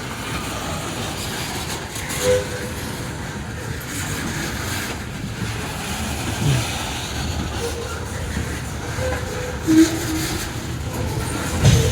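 Loaded coal train's cars rolling past, a steady rumble with wheels clacking over the rail joints and a few louder clunks.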